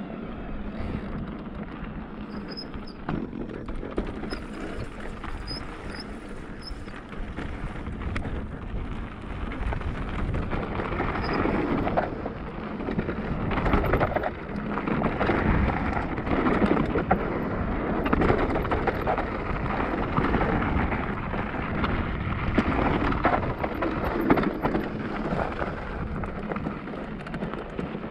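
Cube Stereo Hybrid 160 e-mountain bike riding a rough trail: the tyres and frame keep up a steady rumble and rattle over the ground, with many small knocks. It grows louder and rougher about ten seconds in.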